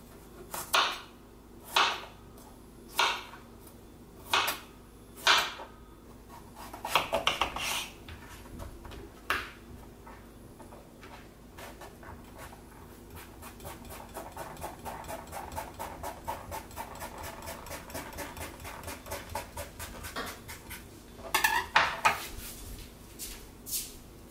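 Chef's knife cutting eggplants on a cutting board: single chops knock on the board about once a second, then a long run of fast, light cuts as the eggplant skin is finely scored, then a few louder chops near the end.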